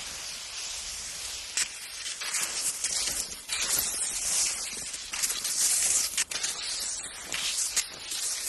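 Skis hissing and scraping over snow, the swish swelling and fading irregularly, with a few short sharp scrapes.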